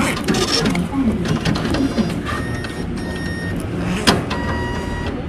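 Automatic passbook-entry machine printing a new entry into a postal passbook: mechanical whirring with a steady high tone in two stretches, broken by a sharp click about four seconds in.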